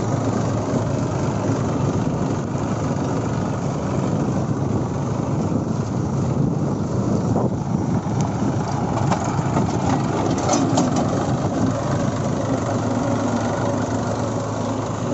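Massey Ferguson 241 DI tractor's three-cylinder diesel engine running steadily under way in second high gear, with a Deutz-Fahr tractor's engine running alongside.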